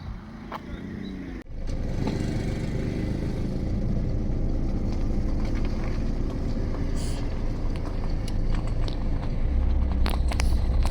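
Motor vehicle running, a steady low rumble of engine and road noise that starts suddenly about a second and a half in and grows deeper near the end.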